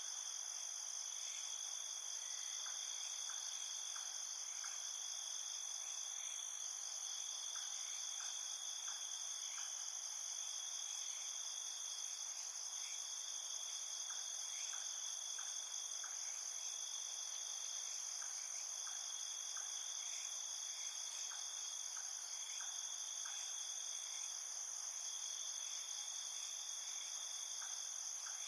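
Night insect chorus: crickets and other insects trilling steadily in several high-pitched layers, with short faint chirps in little groups every second or two.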